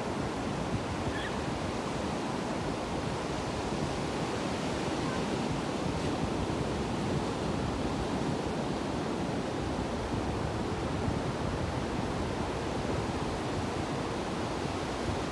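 Ocean surf: waves breaking and washing in, a steady rush of noise that does not let up.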